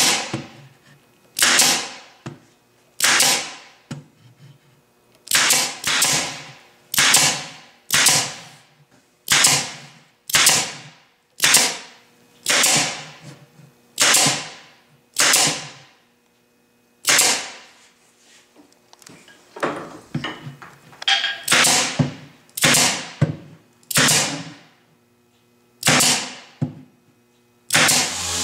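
DeWalt pneumatic nailer firing nails into plywood panels, some twenty shots about one a second with a short pause near the middle. Each shot is a sharp crack that trails off briefly.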